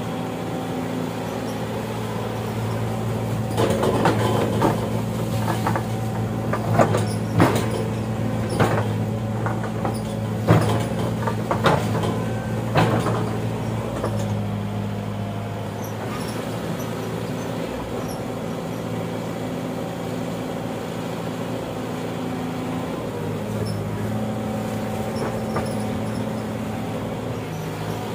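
Excavator's diesel engine running steadily, with a series of sharp metal clanks and knocks from about four to thirteen seconds in.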